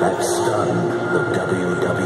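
Dramatic music from a promo video, played loud over arena loudspeakers, with held notes over a dense, steady backing.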